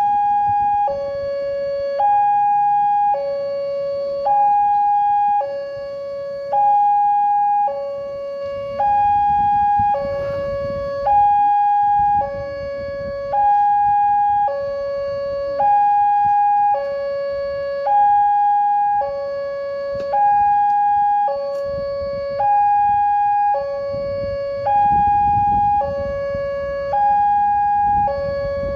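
Indonesian railway level-crossing warning alarm sounding its electronic two-tone signal, alternating steadily between a high and a low tone about once a second each. It warns that a train is approaching and the crossing barriers are closing.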